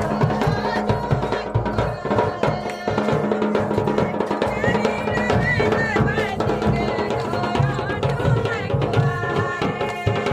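Traditional Pahadi folk music: steady, dense drumming with a melody line that rises and falls over it.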